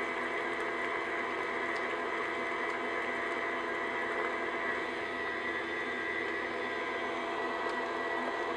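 Stand mixer running steadily at low speed, its flat paddle beating thick cream cheese batter in a glass bowl: an even motor whir with several held tones.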